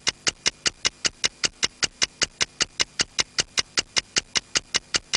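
Rapid, evenly spaced mechanical-sounding ticking, about six ticks a second, each tick short and sharp.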